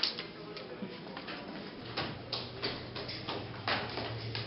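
Footsteps of a person walking on a hard floor and down tiled stairs: irregular short taps. A low, steady hum comes in about two seconds in.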